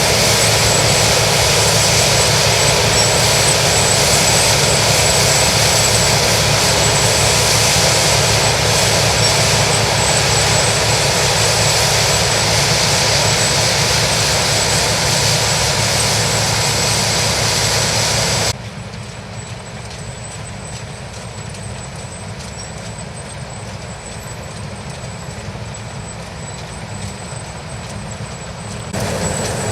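New Holland TX68 combine harvester running steadily under load, a dense mechanical rumble with a thin high whine. About two-thirds of the way through it cuts suddenly to a quieter, duller version of the same running noise, then jumps back to full loudness near the end.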